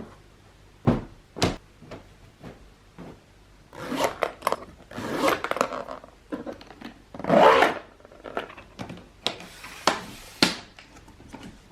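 Handling noises: a string of sharp knocks and clicks with stretches of rubbing and scraping, the longest and loudest about seven seconds in.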